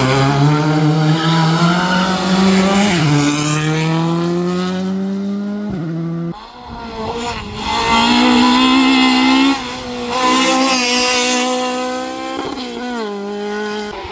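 Racing car engine at full throttle, its revs climbing and dropping sharply at each gear change, about three seconds in and again near six seconds. There is a short lift off the throttle, then the engine pulls hard again, with quick rev blips near the end.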